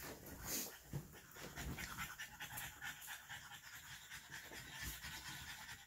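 A dog panting quickly and steadily.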